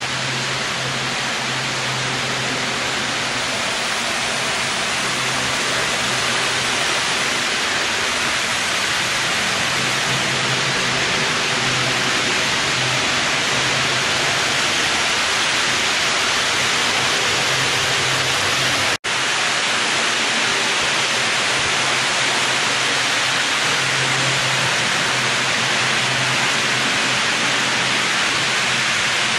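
HO-scale model trains running on the layout: a steady rushing hiss with a low hum that comes and goes. The sound cuts out for an instant about two-thirds of the way through.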